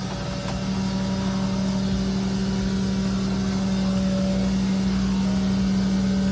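Tow truck engine running steadily, a constant low hum with a rumble beneath it.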